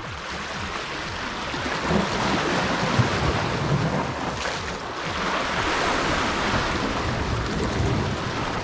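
Sea waves washing and foaming over shoreline rocks, surging up twice, with wind buffeting the microphone.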